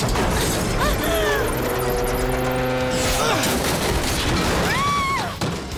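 Cartoon action-scene sound effects: a continuous, loud crashing and rumbling of destruction as a car is hurled, over music with held chords, with a couple of brief vocal cries.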